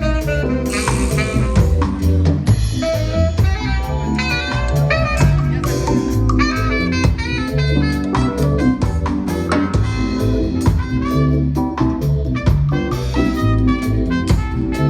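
Live band playing an instrumental passage, with drum kit, a strong bass line and horns.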